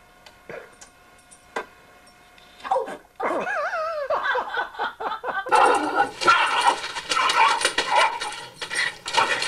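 A small dog gives a high, wavering whine. Then, a little past halfway, a dog bursts into fast, continuous barking at a front door, going after the mail that has come through.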